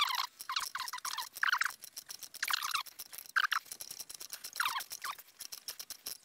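Socket ratchet working a rusted exhaust header nut on a BMW R1200GS cylinder head. Its pawl clicks in short bursts about once a second, with squeaking from the seized fastening.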